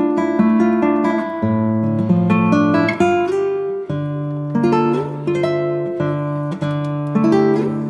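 Background music: plucked guitar chords with notes that change every second or so.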